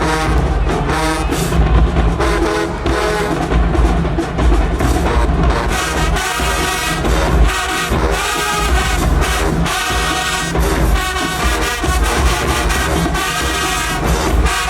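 Marching band playing: a full brass section over a heavy bass-drum and percussion beat.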